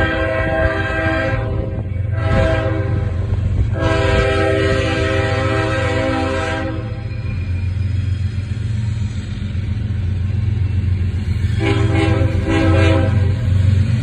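CSX diesel locomotive sounding its multi-chime air horn as it approaches, a chord of several notes in separate blasts: one ending just after the start, a short blast near two seconds in, a longer one from about four to seven seconds in, and two short ones near the end. The locomotive's diesel engine rumbles steadily underneath.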